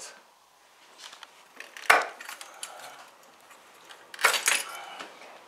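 A Porsche 944 Turbo fuel rail and its injectors being pried out of the engine: one sharp snap about two seconds in, then a rougher clattering noise about four seconds in, with small clicks between.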